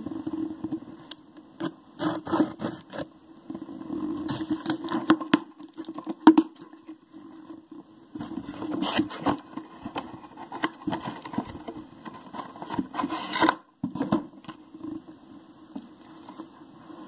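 Trading card boxes and packaging being handled: irregular scrapes, rustles and knocks, with a sharp knock about six seconds in, over a steady low hum.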